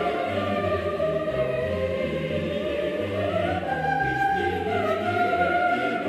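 Background music in a choral, operatic style: voices holding long notes over a low bass line that moves in steps.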